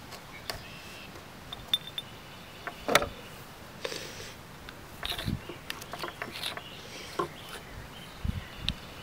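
Irregular clicks and knocks of a rebar lever bar being handled in an aluminum pipe while twisting a rope torsion spring tight. The loudest knock comes about three seconds in.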